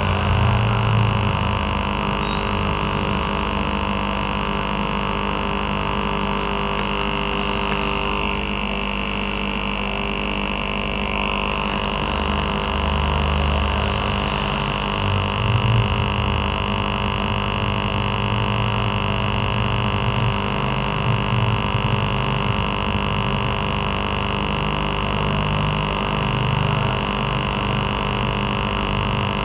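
Aquarium air pump (aerator) running with a steady buzzing hum that does not change throughout.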